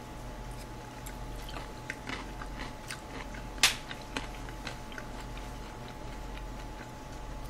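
Close-miked chewing of a mouthful of chop steak, with many small wet mouth clicks and one sharper click about three and a half seconds in, over a steady low hum.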